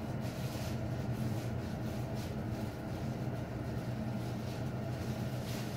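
A steady low hum, with faint, irregular crinkling of plastic garbage bags being handled and bunched up.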